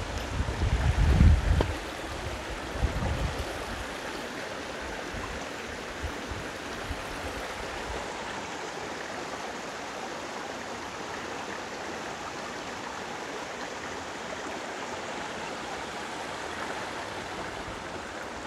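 Shallow rocky moorland stream, Grinds Brook, running over stones with a steady rushing and trickling. A low rumble sits under it for the first three seconds.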